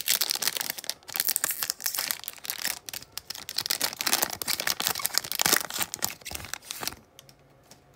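Panini Prizm football card pack's wrapper crinkling and tearing as it is ripped open, in dense irregular crackles that stop about seven seconds in.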